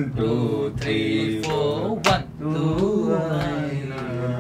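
Music: a male voice singing in a chant-like line over a steady low drone, with two sharp percussive hits.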